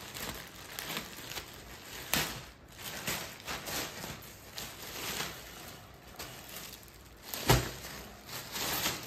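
Plastic courier mailer bag crinkling and tearing as it is opened by hand, then the clear plastic wrap around a backpack rustling as it is pulled out. There are irregular crackles, with a sharp one about two seconds in and the loudest about three quarters of the way through.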